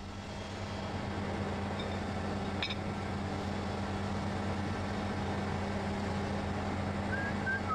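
Steady workshop machinery hum with a low electrical drone underneath, and a faint click about a third of the way through.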